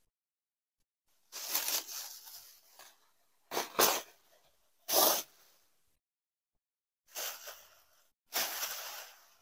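Bubble wrap rustling and crinkling as hands pull it open and push it aside, in five short bursts with silence between them.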